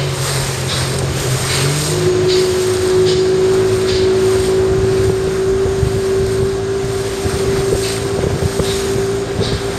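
Yamaha 40 hp two-stroke outboard motor running steadily under way, over the rush of water. About two seconds in, its note shifts to a steady higher hum.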